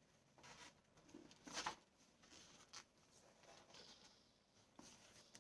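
Near silence with faint rustling and a few soft taps from hardcover books and their packaging being handled. The most noticeable rustle comes about a second and a half in.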